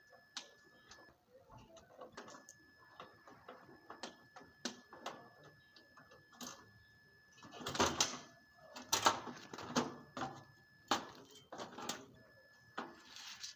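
Irregular clicks, taps and clatter of hand work on a compressor unit, growing busier and louder past the middle.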